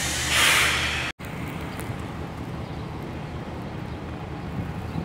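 Steady low hum of an idling engine with a brief gust of wind on the microphone, broken off abruptly about a second in; after that, quieter outdoor background noise with wind.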